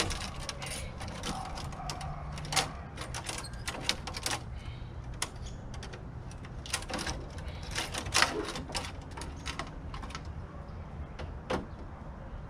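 Small hand cutters snipping copper tubing and loose bits off a closet air-conditioner coil: an irregular run of sharp snips and clicks.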